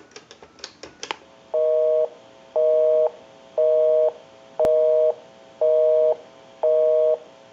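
A few clicks, then a telephone busy signal on the line: a two-tone beep about half a second on and half a second off, repeating once a second, six times, meaning the called number is engaged. A single sharp click cuts in midway.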